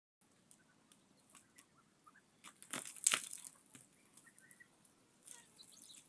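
Faint crunching and crackling clicks, loudest in a cluster about three seconds in, with a few faint high chirps, cutting off suddenly at the end.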